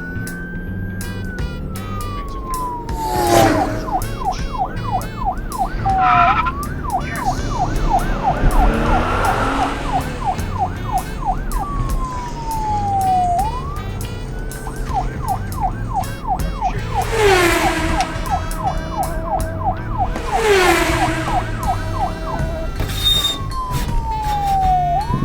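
Police siren alternating between slow falling wails and fast yelping warbles, about five a second, over background music with a steady beat. A few loud swishes break in along the way.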